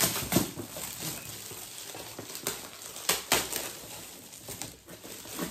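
Shiny metallic gift wrap crinkling and rustling as it is pulled open and handled, with a few sharper crackles, the loudest about three seconds in.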